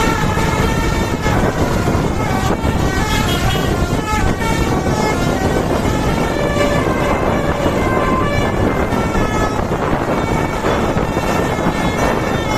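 Basuri telolet musical bus horn playing a tune of stepping notes, strongest through the first five seconds, with a few shorter notes later, over a steady rumble of vehicle noise.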